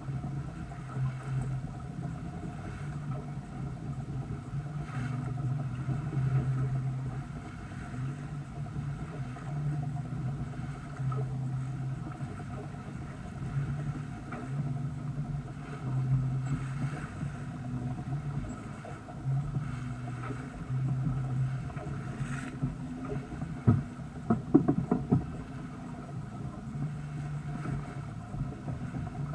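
Water rushing and splashing along the hull of a sailboat under sail, over a steady low hum that swells and fades. Near the end comes a short cluster of sharp clicks and knocks.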